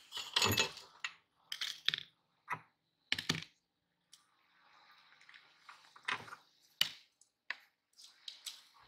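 Metal parts of a hand-cranked meat grinder being taken apart: the perforated cutting plate and cross-shaped blade pulled from the candy-packed barrel and set down on a plastic tray. The sound is a series of irregular clinks and knocks with some gritty scraping.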